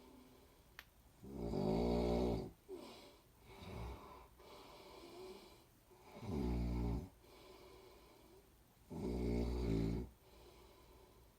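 A person snoring: three loud, rattly snores about a second long, coming every three to four seconds, with softer breathing sounds between them.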